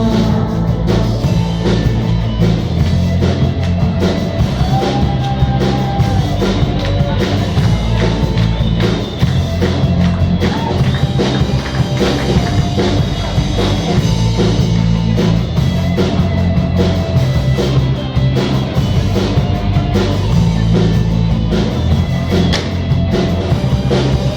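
Instrumental break in a rock song: drum kit keeping a steady beat under sustained bass notes and a guitar melody, with no vocals.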